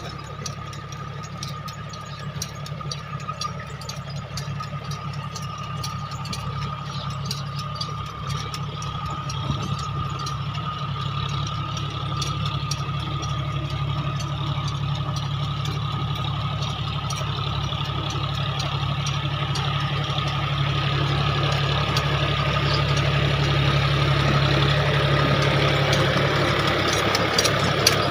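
John Deere tractor's diesel engine running steadily under load while driving a rotavator through hard, dry soil, with a thin steady whine above the engine. The sound grows steadily louder through the middle of the stretch.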